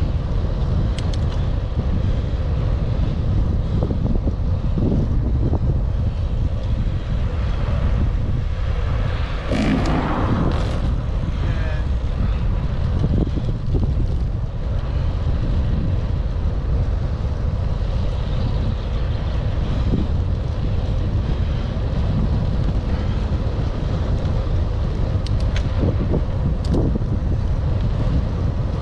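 Wind buffeting a helmet-mounted camera's microphone while cycling, a steady low rumble. A brief sound rising in pitch cuts through about a third of the way in.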